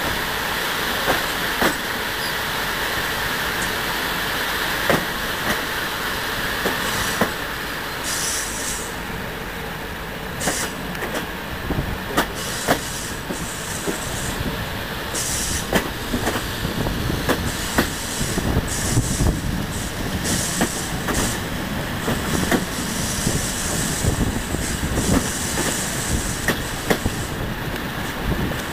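Romanian CFR express passenger train running along the track, heard from a carriage window: a steady rush of wheel and wind noise with irregular sharp clicks of the wheels over rail joints.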